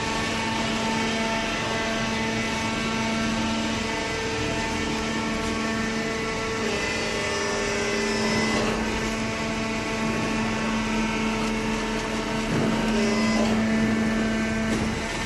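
Hydraulic baler's pump and motor running with a steady hum, with a few brief louder rattles partway through.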